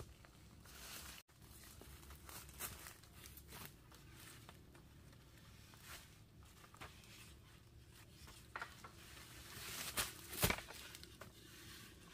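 Dry bamboo leaf litter crunching and rustling underfoot, and cut bamboo poles clicking and knocking together as a tied bundle of them is dragged up and lifted onto the shoulder. There is a louder clack about ten seconds in.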